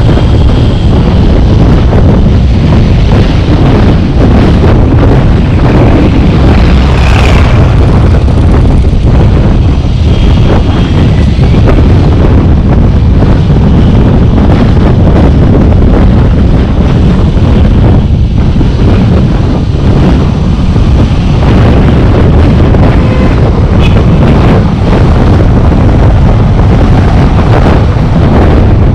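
Loud, steady wind rumble on the microphone of a camera on a moving car, over road and traffic noise.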